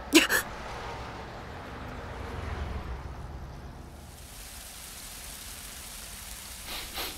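A steady, rain-like hiss that grows brighter about four seconds in, after a brief sharp sound just after the start.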